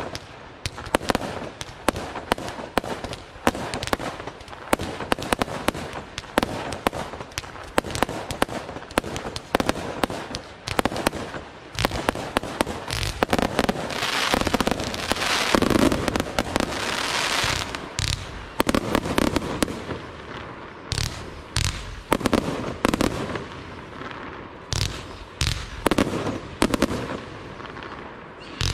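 Aerial fireworks display: a rapid barrage of shell bursts and bangs that thickens into a dense, continuous wash of sound about halfway through, then thins to fewer, separate bangs near the end.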